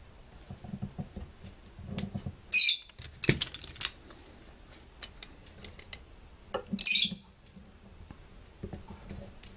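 Clicks, taps and rubbing from handling fret wire and a plier-style fret-press tool on a guitar fingerboard, with a cluster of sharp clicks about three seconds in. A short, high chirp also sounds twice, about four seconds apart.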